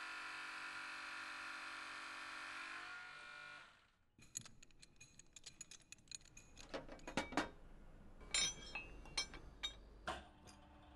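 Swaging machine running with a steady hum of several held tones while it presses a stainless terminal onto steel wire rope; it stops about four seconds in. After that comes a run of sharp metallic clicks and clinks as stainless rigging fittings and steel parts are handled.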